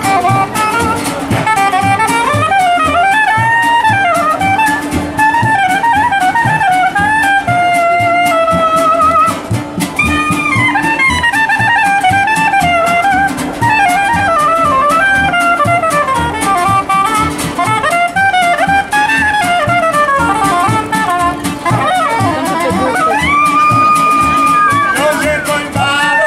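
Street band playing jazz: a soprano saxophone carries a winding melody over a strummed acoustic guitar and a plucked washtub bass. The saxophone holds a couple of long notes near the end.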